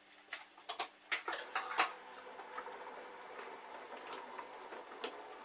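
O gauge model railway: several sharp clicks and clatters of wagons and couplings being handled on the track, then a model locomotive's electric motor running with a faint steady hum as the wagons start rolling.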